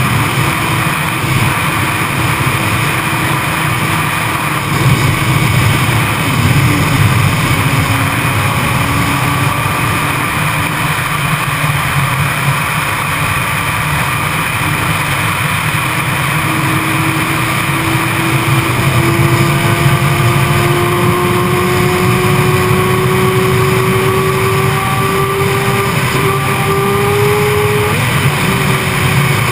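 Yamaha YZF-R6's inline-four engine pulling at speed, its pitch climbing slowly through the second half as the bike gathers speed, under a heavy rush of wind noise on the onboard microphone.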